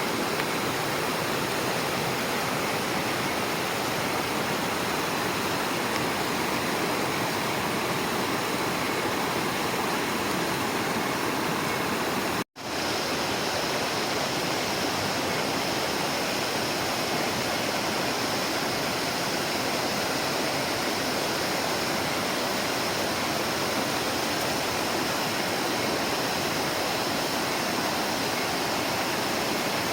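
Steady rush of flowing water, briefly cut off about twelve seconds in before resuming.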